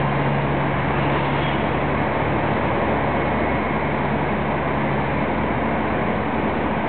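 Heavy machinery running: a steady engine drone under a loud, even rushing noise. A low hum in it drops out about five seconds in.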